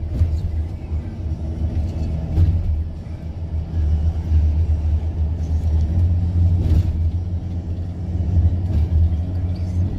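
Steady low rumble of a vehicle in motion, with a few faint knocks.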